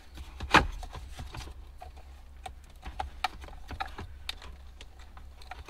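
Plastic wiring-harness connectors being worked loose and unplugged from a car's climate control unit. A sharp click comes about half a second in, followed by a run of small plastic clicks and taps.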